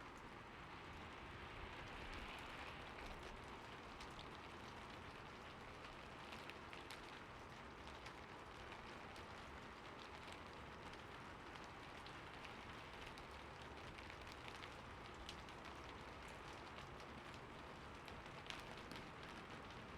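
Steady heavy rain falling, with a continuous hiss and many individual drops ticking through it.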